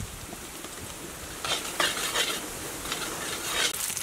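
Metal spatula scraping and stirring minced garlic frying in oil in a wok, over a steady sizzle. The scraping strokes start about a second and a half in and keep coming every fraction of a second.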